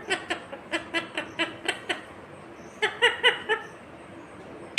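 Ringneck parrot giving a quick run of short, repeated laugh-like syllables, about four or five a second, then another brief cluster a little past the middle.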